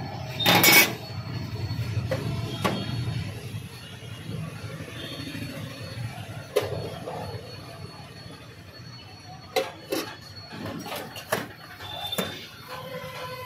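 Steel utensils and trays clinking and knocking on a stainless-steel food-stall counter, with a louder clatter about half a second in and scattered sharp knocks later. A steady low rumble runs underneath.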